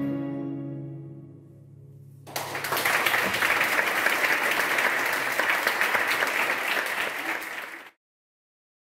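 The final held chord of a baroque ensemble (baroque violin, viola da gamba, theorbo and harpsichord) fades away over about two seconds, then the audience breaks into applause, which cuts off suddenly near the end.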